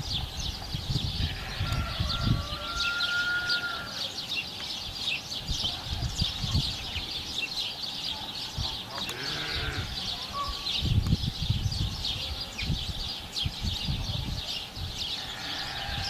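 Animal calls: a constant high chatter, a few short whistled notes, and one pitched call about nine seconds in, over low rumbling bumps of wind or handling on the microphone.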